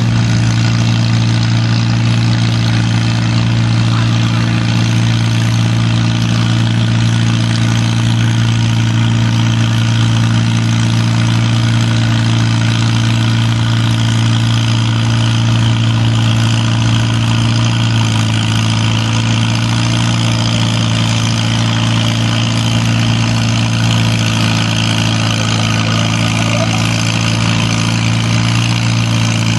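Tractor engines idling steadily in a staging line, a constant low drone with no revving.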